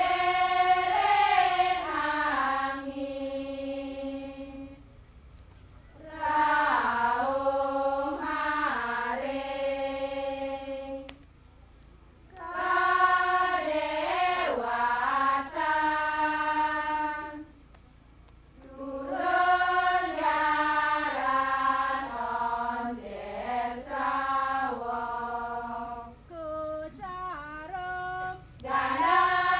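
Balinese sanghyang chorus singing a sacred trance song in unison, in long phrases of about five seconds with short breaks between them. Near the end the phrases turn shorter and more broken.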